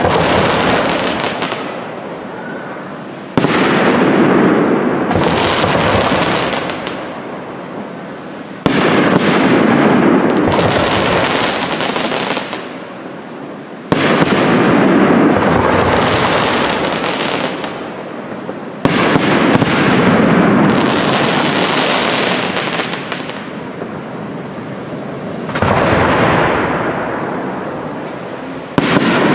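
Aerial fireworks shells bursting one after another, about every five seconds. Each is a sudden loud bang followed by a long tail that fades over several seconds before the next.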